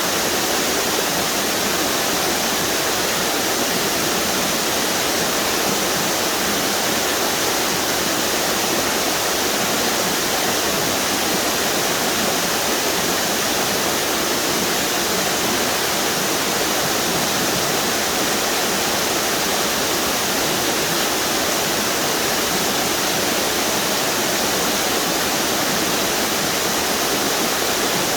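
A string of small waterfalls on a river, water pouring and splashing in a steady, even rush.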